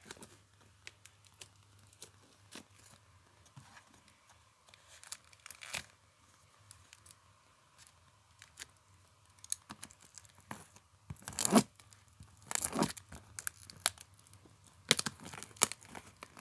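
Brown packing tape being cut and ripped off a cardboard box, with small scratching and handling noises at first, then several loud rips in the second half.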